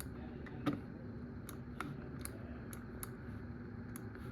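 Scattered clicks of a computer keyboard being used, keys pressed at irregular intervals with one louder knock about two-thirds of a second in, over a low steady hum.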